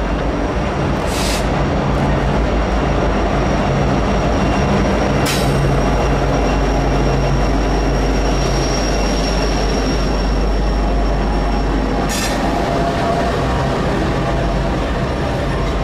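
Norfolk Southern diesel freight locomotives passing close with their engines running, then intermodal container and trailer cars rolling by with steady wheel-on-rail noise. The locomotive engine hum fades about halfway through, and three short sharp wheel noises stand out.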